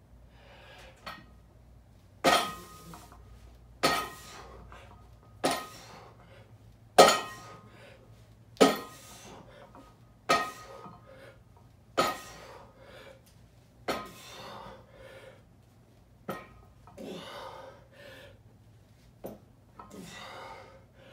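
Barbell loaded with bumper plates clanking once per rep during seal rows, about one sharp metallic clank every second and a half, with hard breathing between reps later in the set.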